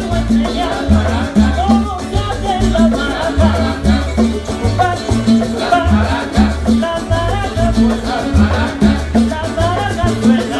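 Salsa music: a syncopated bass line under shifting melody lines, with dense high percussion running throughout.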